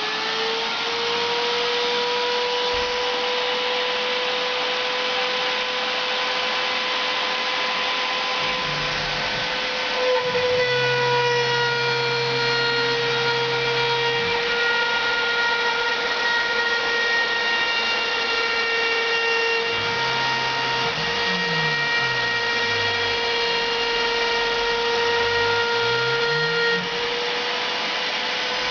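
CNC router spindle running at a steady high-pitched whine. From about eight seconds in, the axis motors hum beneath it in short steady tones and rising and falling glides as the machine moves.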